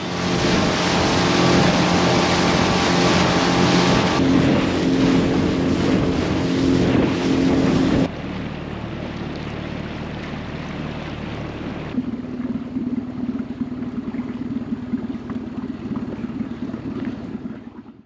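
Small dinghy outboard motor running steadily with wind and water noise. It is loudest for the first eight seconds, and the sound changes abruptly about eight and twelve seconds in.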